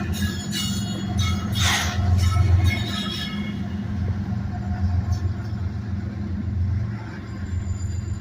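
Freight train rolling by with diesel locomotive rumble. For the first few seconds, high metallic squeals from the wheels and brakes rise over the rumble.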